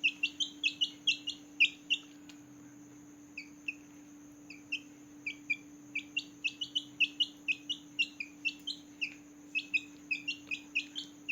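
Newborn chicks peeping: rapid short high chirps, each falling in pitch, coming several a second. They thin to a lull of about two seconds early on, then come thick again. A steady low hum runs underneath.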